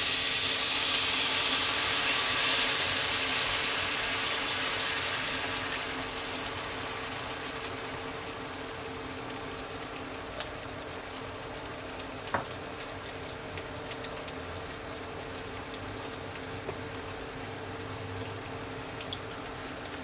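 Water sizzling and hissing in a hot wok of frying tomatoes, loud at first and dying down over the first five or six seconds as the pan cools to a quiet simmer. A few light clicks of a wooden spatula stirring against the pan follow.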